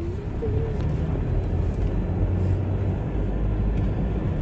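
Car running along a city road, heard from inside the cabin: a steady low engine and road rumble.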